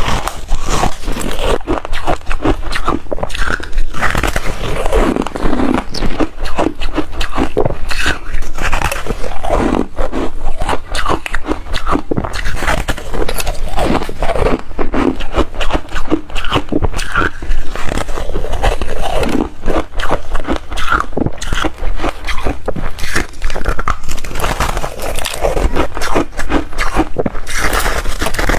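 Close-up crunching of soft reshaved freezer ice being bitten and chewed in big mouthfuls, a dense run of crunches without a break.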